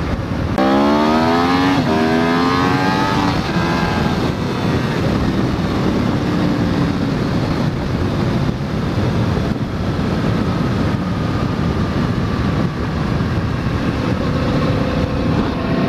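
Sport motorcycle engine accelerating hard: its pitch climbs, drops at an upshift, and climbs again twice in the first few seconds, then settles into a steady run. Heavy wind noise rushes over the helmet microphone throughout.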